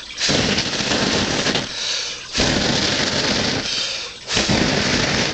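Three gusts of air blown hard at a burning fire patty to test its wind resistance, each a rushing, buffeting noise on the microphone lasting one to two seconds, with short breaks between.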